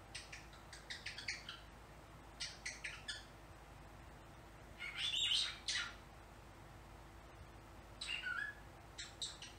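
Pet cockatiel chattering: quick runs of short high chirps and clicking sounds in several separate groups, the loudest and longest run about five seconds in.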